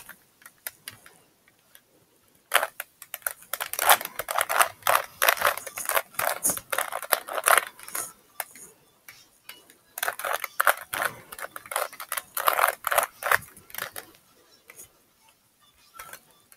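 Rubik's Cube being turned quickly by hand: dense runs of plastic clicking and clacking as the layers snap round. The turning comes in two long spurts, the first starting about two and a half seconds in and the second about ten seconds in, with quieter pauses between.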